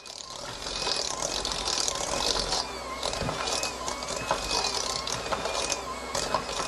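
Handheld electric mixer running steadily, its beaters creaming butter and sugar in a stainless steel bowl, with a thin wavering motor whine and scattered clicks of the beaters against the metal bowl.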